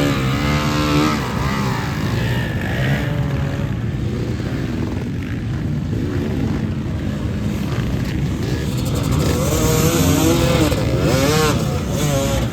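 Off-road motorcycle engines racing on the beach, several bikes revving up and down with the pitch rising and falling as they pass, louder near the end.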